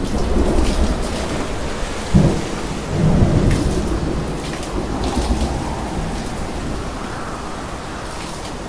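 Thunderstorm: steady rain with thunder rumbling. A sharp crack comes about two seconds in, and a longer peal follows a second later and slowly dies away.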